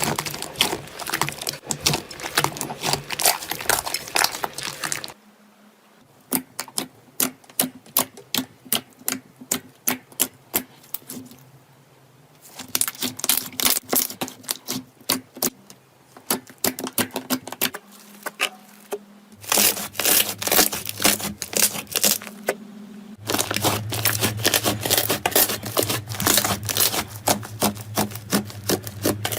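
Slime being squeezed, pressed and poked by hand, giving rapid sticky clicks and crackling pops. The texture of the crackle changes several times, once about five seconds in and again near 12, 19 and 23 seconds.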